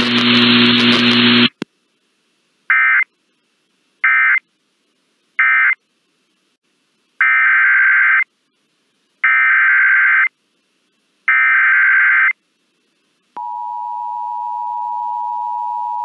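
NOAA Weather Radio Emergency Alert System data bursts: three short end-of-message bursts, then after a pause three longer header bursts announcing the next warning. From about 13 seconds in, the steady 1050 Hz weather alert tone sounds and holds.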